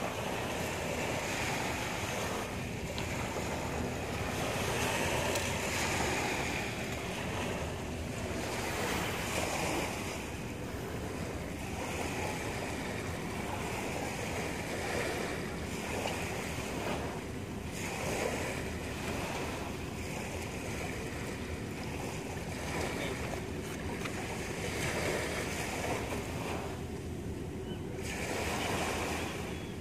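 Sea waves washing against shoreline rocks, a steady rushing noise that swells and eases gently, with some wind on the microphone.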